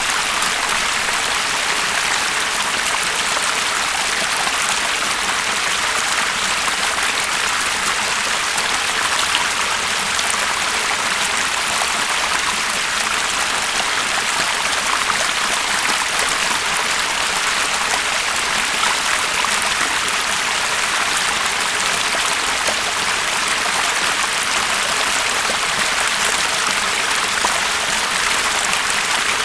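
Water stream flowing steadily: a constant, even rush of water, mostly high in pitch, with no pauses or changes.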